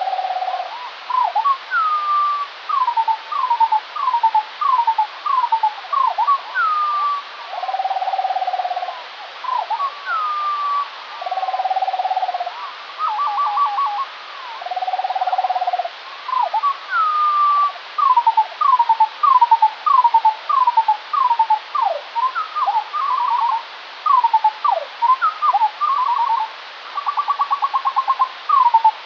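Skylark song played back at quarter speed, so it sounds two octaves lower and four times slower. A continuous run of short falling slurred whistles is broken by several held buzzy notes lower in pitch, about a second long each, and by quick rattling trills. A steady hiss sits underneath.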